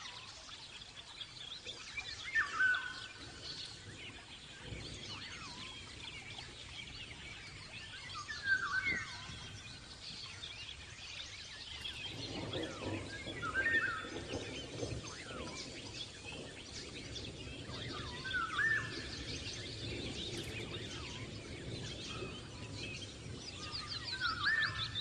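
Small birds chirping and twittering, with one louder short call repeated five times, about every five seconds. A low background rumble of noise comes in about halfway through.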